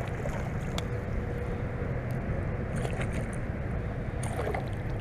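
Steady low wind rumble on the microphone, with a few brief clicks and rustles from handling.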